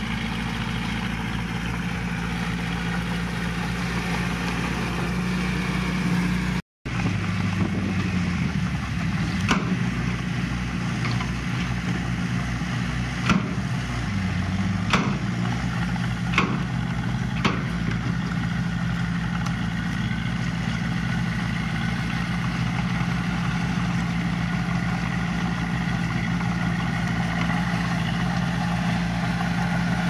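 Diesel engine of earthmoving machinery running steadily, its pitch dipping briefly twice as it takes load, with several sharp knocks in the middle stretch.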